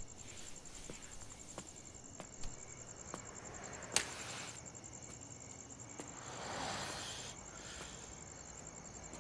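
Crickets chirping in a steady, fast-pulsing high trill, with a single sharp click about four seconds in.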